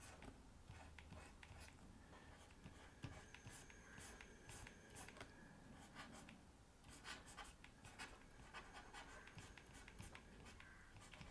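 Faint scratching of a stylus on a drawing tablet: many short, irregular pen strokes.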